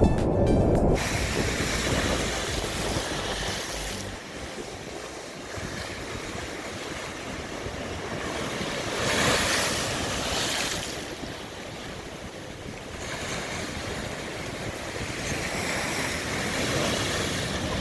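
Ocean surf washing in and out, rising to a louder surge about nine seconds in, with wind buffeting the microphone.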